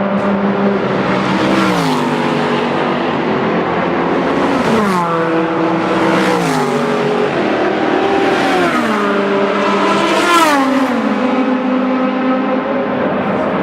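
Historic racing cars passing one after another at speed on the start/finish straight. Their engine notes drop sharply in pitch as each goes by, about five times.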